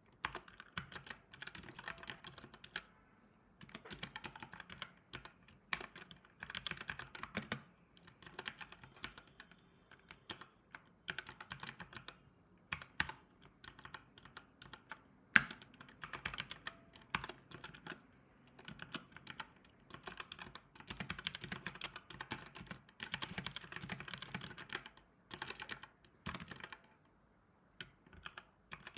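Typing on a laptop keyboard: quick runs of keystrokes broken by short pauses, with one key struck harder about fifteen seconds in. The typing stops near the end.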